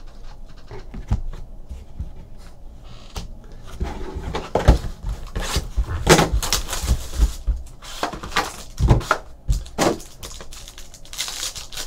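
Hands handling trading card boxes and packs on a tabletop: a few light taps, then from about four seconds in a run of knocks, rustles and crinkling as a foil card pack wrapper is worked open.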